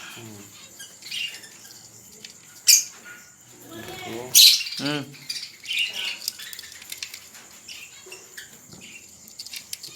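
Caged budgerigars chirping and chattering in short scattered calls, with a couple of sharp clicks and rattles from the cages about three and four and a half seconds in.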